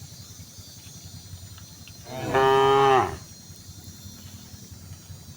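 A cow moos once: a single call about a second long, starting about two seconds in, falling in pitch at its end.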